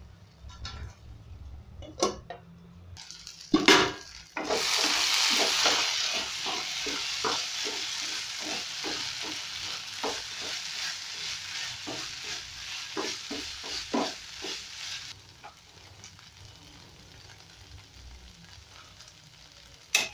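Beef tripe in tomato sauce sizzling in a non-stick frying pan while a spoon stirs it, scraping about twice a second; the sauce is cooking down to a dry fry. A few knocks of the spoon on the pan come before the sizzling picks up about four seconds in, and it dies down about fifteen seconds in.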